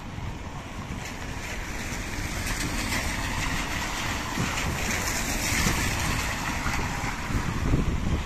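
A car passing on wet paving stones, its tyres hissing on the wet surface; the hiss swells over the first few seconds and then eases. Wind rumbles on the microphone throughout.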